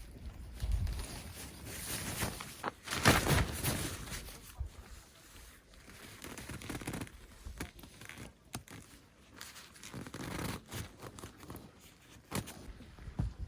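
Irregular rustling and scraping, with a few sharp clicks and a louder stretch about three seconds in.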